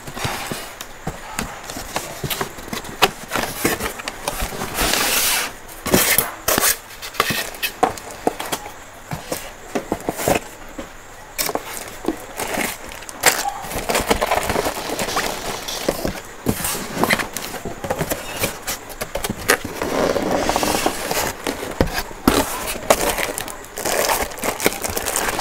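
Cardboard carton flaps and polystyrene packing blocks being handled and pulled about while a sewing machine is unpacked: irregular scraping, rustling and sharp knocks throughout.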